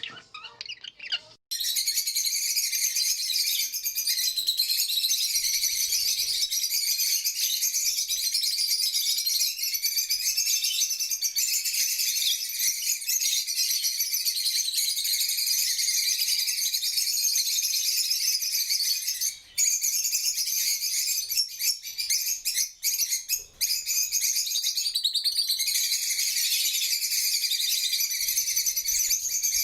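Budgerigar chattering and warbling nonstop in a dense, high-pitched stream of chirps, starting after a short break about a second and a half in and dropping out only briefly a couple of times.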